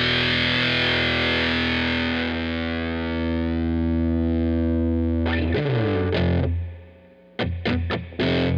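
Squier VM Jazz played through a Killer Otter Electric Party Animal fuzz pedal. A long, heavily fuzzed sustained note grows darker as the pedal's knobs are turned. A fresh note struck about five seconds in fades out, and short choppy fuzzed notes follow near the end.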